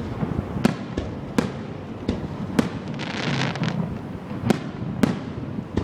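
Fireworks display: about six sharp bangs of aerial shells going off at uneven intervals, with a short burst of hissing crackle about three seconds in.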